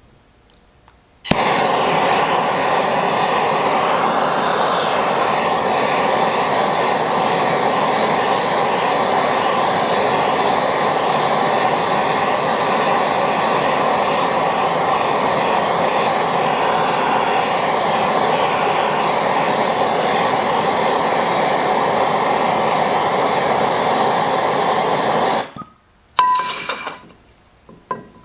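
Handheld gas torch lit with a sudden start and burning with a steady hiss for about 24 seconds, heating a lantern generator to burn out its old cardboard packing. It cuts off near the end, followed by a few brief, sharp sounds.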